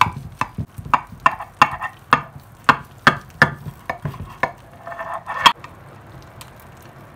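Chef's knife chopping down through baked lasagna, its blade tapping the bottom of the ceramic baking dish about three times a second. The taps stop about five and a half seconds in.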